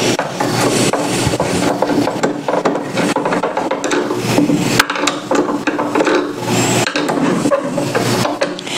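Hand screwdriver backing a screw out of a deep channel in an LCD TV's plastic rear housing: continuous scraping and rasping of the tool against screw and plastic, dense with small clicks.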